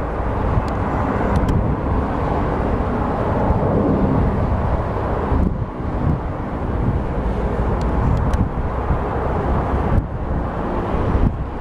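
Twin-engine jet airliner climbing overhead: a steady rumble of its engines, with a short dip about five and a half seconds in.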